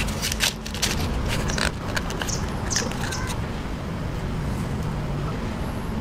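Cardboard safety-match box being handled: a run of small clicks and scrapes in the first three seconds, then only a steady low rumble in the background.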